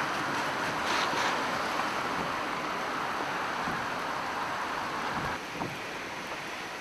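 Steady rushing noise of a rain-swollen river near flood level and heavy typhoon rain, with wind on the microphone. It drops a little in level about five seconds in.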